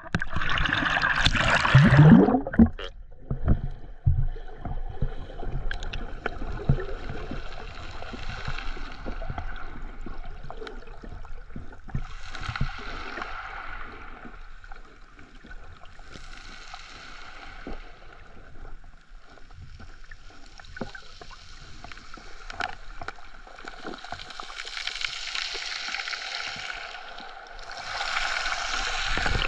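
Seawater sloshing and gurgling around a camera dipped below the surface, with many small clicks scattered through it. It is loudest in the first couple of seconds, swells and fades several times, and rises again near the end.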